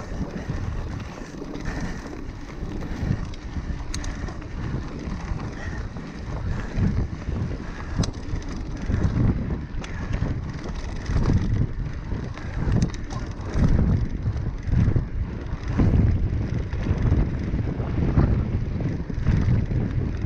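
A mountain bike rolling along dry dirt singletrack, its tyre noise and rattles mixed with wind buffeting the action camera's microphone. The buffeting grows stronger in the second half, and there are a few sharp clicks from the bike over bumps.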